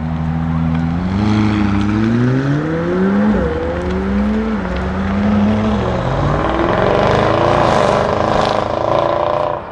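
Lamborghini Huracán STO's naturally aspirated V10 accelerating hard, its revs climbing, dropping sharply at a gear change about three seconds in, then climbing again. It is loudest near the end.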